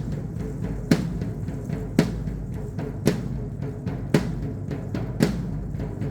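Dance drumming for a traditional Mexican danza: a steady beat of sharp strikes about once a second over a continuous low rumble.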